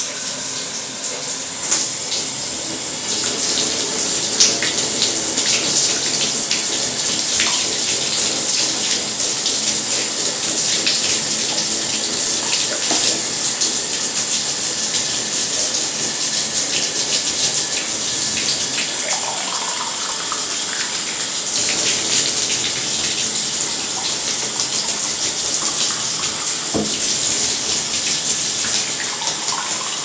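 Water running and splashing steadily, with a bright hiss and many small drips and splashes; it gets louder about three seconds in.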